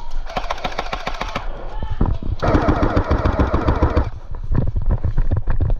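Airsoft guns firing in rapid automatic bursts: fast runs of sharp clicks, with a louder, busier stretch in the middle.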